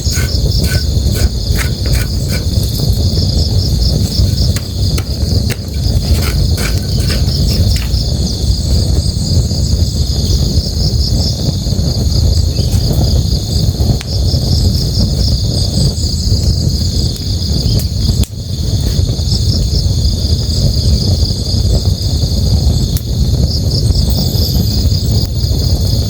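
Night ambience of a river and a campfire: the steady rush of flowing river water underneath, night insects trilling in a continuous pulsing chorus, and sharp crackles and pops from the burning fire, most of them in the first several seconds.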